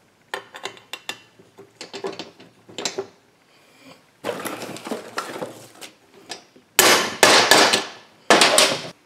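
Light clinks of steel parts being handled on a steel bench. Near the end come two loud runs of rapid taps from a brass hammer on an aluminium driver, seating a new crankshaft main bearing into a heated Husqvarna 576xp crankcase half.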